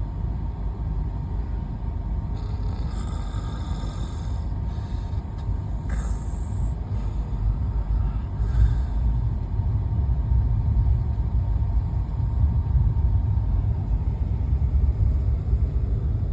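Steady low rumble inside a moving Rajdhani Express AC coach, growing louder about halfway through, with a few brief hisses in the first half.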